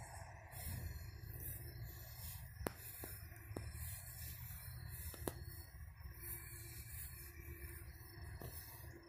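Footsteps swishing through grass about once a second over a low rumble, with two sharp clicks, one near the third second and one past the fifth.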